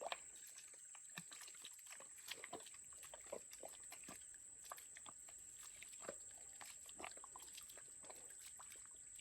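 Faint night ambience: a steady high-pitched hum with scattered soft clicks and taps.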